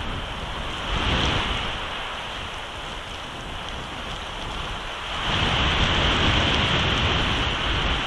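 Storm wind blowing across the nest camera's microphone in a steady rush that swells in gusts, once about a second in and again from about five seconds on.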